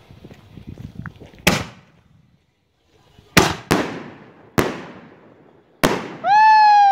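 Consumer aerial fireworks going off: a sharp report about a second and a half in, then four sharp bangs of shells bursting overhead, each trailing away. Near the end, a person's high, drawn-out whoop.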